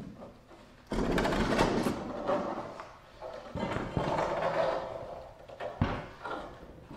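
Large wooden 2x4 frame being tipped down and set onto concrete blocks: lumber scraping and knocking from about a second in, then a sharp thud near six seconds as it comes to rest.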